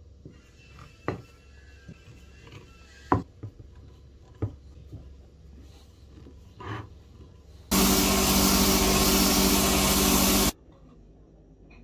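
A few sharp clicks and knocks of bar clamps being set on a glued plywood stack. Then, about eight seconds in, a loud belt sander running steadily for about three seconds while a plywood disc is held against the belt; it starts and stops abruptly.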